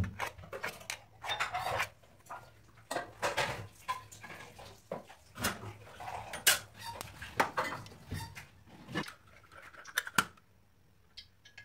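Metal spoon scraping and clinking against a stainless steel bowl and a steel murukku press as sticky rice-flour dough is scooped out and packed in; the clatter comes in irregular bouts and stops about ten seconds in.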